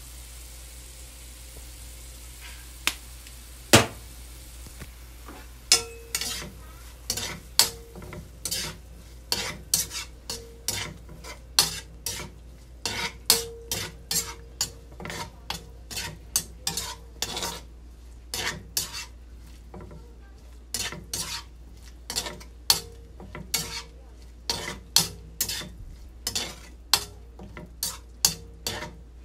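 Diced pork sizzling in oil in a nonstick wok, then from about six seconds in a spatula stirring it, scraping and striking the pan in a long run of sharp clicks in quick, uneven succession.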